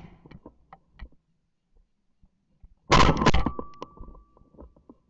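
Shotgun blasts at incoming teal and wigeon: a loud close burst of shots about three seconds in, with lighter clicks and knocks before it.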